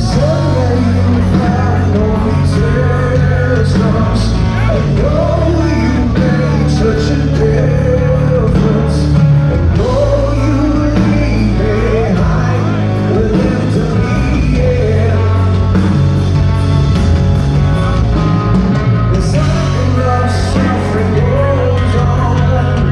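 Live rock band playing loud and continuous: distorted electric guitars, bass and drums, with wavering, bending melodic lines over a steady heavy low end, in the long instrumental stretch of the song.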